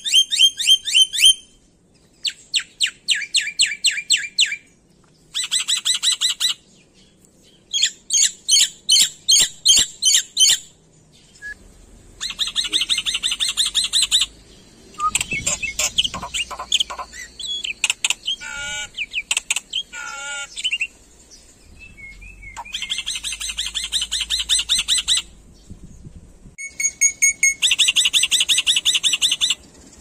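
Black-winged myna (jalak putih) singing loud bursts of rapid, repeated high notes, each burst a second or two long, with short pauses between. In the middle come a few slower, wavering whistled phrases.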